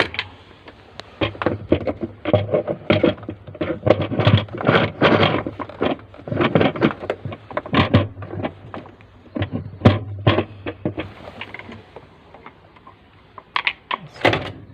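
Irregular plastic knocks, clicks and clatter of a washing machine pulsator being handled and fitted into the drum, many in quick succession at first and only a few near the end.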